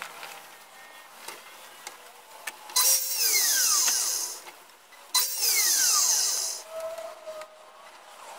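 Compound mitre saw started and brought down twice, each time cutting through a strip of wood for about a second and a half, then a falling whine as the motor and blade spin down.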